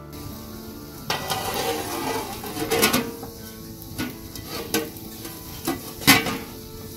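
A thin metal lid clattering and scraping as it is laid onto a large black cooking pot over a fire, with a rasping stretch of about two seconds and then several sharp knocks, the loudest near the end.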